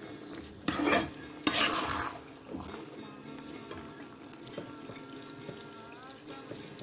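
Steel slotted ladle stirring thick apple halwa in an iron kadai: two loud wet, scraping strokes in the first two seconds, then the stirring stops.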